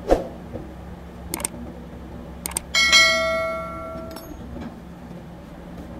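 Subscribe-button sound effect: a couple of sharp clicks, then a notification bell ding that rings out and fades over about a second and a half. A thump comes right at the start.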